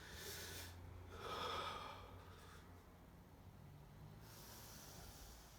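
A man breathing heavily after speaking: three soft breaths, the second the loudest.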